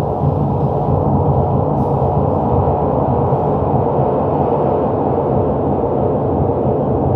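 Steady, dense low electronic drone, unchanging and rumbling, with its weight in the bass.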